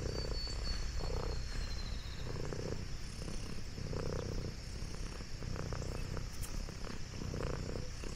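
Domestic orange tabby cat purring steadily while being stroked on the head, the low rumble swelling and easing in waves with its breathing, picked up close by a microphone on its collar.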